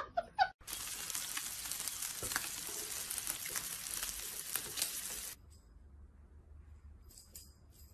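Food sizzling as it fries: a steady hiss full of small crackles that starts abruptly and cuts off about five seconds in.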